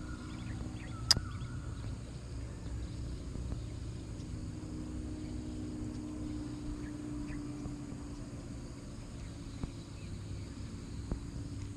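A steady low hum, with one sharp click about a second in and a few faint ticks near the end.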